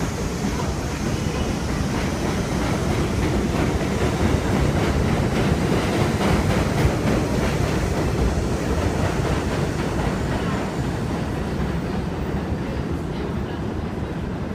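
R62A subway train on the elevated 7 line pulling out of the station, its wheels clacking over the rail joints as the cars run past on the steel structure. The noise eases and dulls over the last few seconds as the train moves away.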